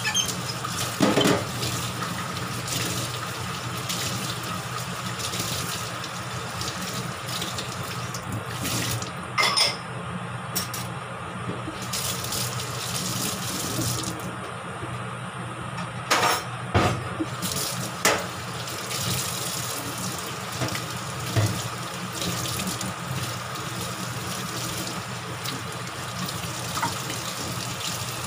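Kitchen range hood exhaust fan running steadily, a rush of air over a low motor hum. A few short clicks break in now and then.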